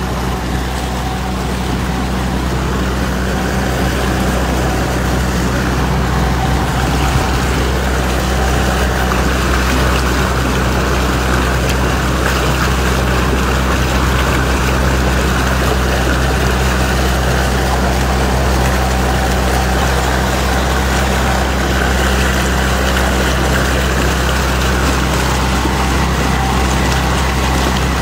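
Outboard motor of a small boat running steadily under way, with the wash of water around the hull; the engine note grows slightly louder over the first few seconds.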